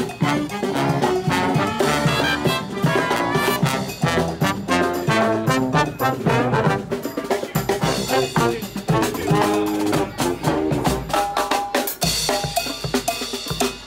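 Marching brass band playing an upbeat tune on sousaphones, trumpets and trombones over snare and bass drums. About twelve seconds in, the horns largely drop away and the drums carry on, leading the beat.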